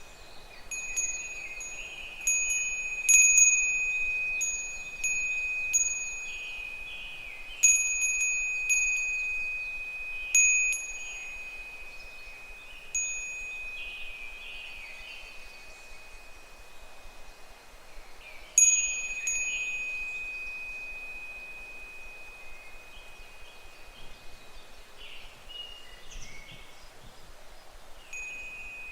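Japanese wind bell (furin) tinkling as its clapper swings in the breeze: irregular single strikes of one clear ringing note, each fading slowly. The strikes come thick in the first ten seconds, then only twice more, about halfway through and shortly after.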